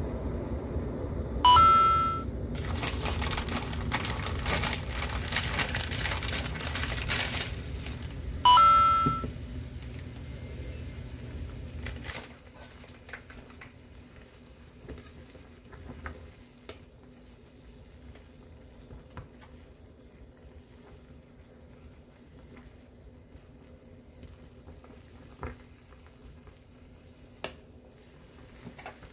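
Ramen broth boiling hard in a steel saucepan, with two loud electronic beeps about a second and a half in and again near nine seconds, and a stretch of crinkling between them. About twelve seconds in the boil drops away as the noodles go in, leaving a quiet simmer and now and then a click of metal tongs against the pot.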